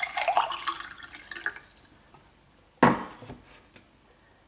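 Water pouring from a Brita filter jug into a tall glass, the splashing stream tapering off about a second and a half in. A single sharp knock follows a little before three seconds.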